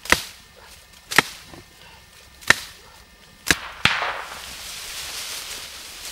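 Axe blows chopping into a young oak trunk: four sharp strikes about a second apart, then a quick fifth. After the fifth blow comes a long rustle and crackle of dry oak leaves and twigs as the tree gives way.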